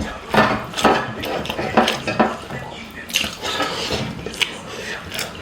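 Close-miked eating sounds: irregular wet chewing and lip smacking on chicken curry and rice, with clinks against the plate.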